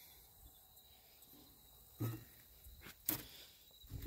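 Faint steady high drone of insects, with a few short soft knocks about two, three and four seconds in.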